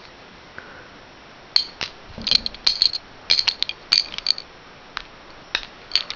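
Small plastic Rubik's cube pieces clicking against each other and against a surface as they are picked up and sorted by hand, in quick irregular clusters of sharp clicks starting about a second and a half in.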